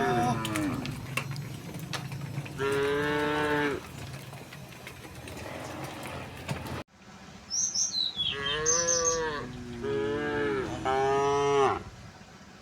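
Cows mooing: long, steady-pitched moos, one a few seconds in and then three in quick succession in the second half.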